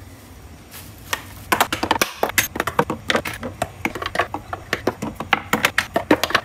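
Quick, irregular clicks and clatter of wires and plastic connectors being handled on a wooden workbench, several a second, over a steady low hum.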